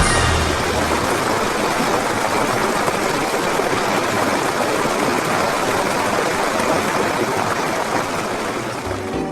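A steady rushing, hissing noise with no pitch or rhythm, easing off slightly near the end.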